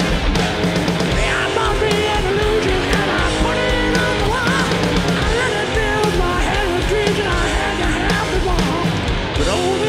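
Hard rock band playing live: loud electric guitars over bass and drums.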